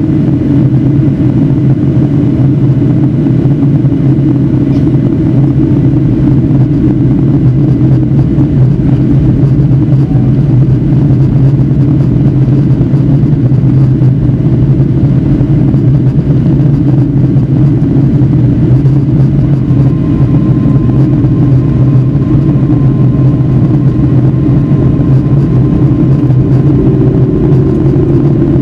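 Boeing 757-300 cabin noise heard from a window seat over the wing during descent: a loud, steady low drone of engines and airflow. A faint high tone comes in about two-thirds of the way through.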